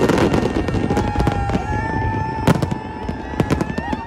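Fireworks display: aerial shells bursting with a rapid run of bangs and crackles over a low rumble, dense at first and thinning out towards the end.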